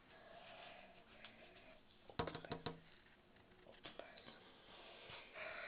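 Near silence: faint room hiss, with a quick cluster of small clicks about two seconds in and a couple more about four seconds in.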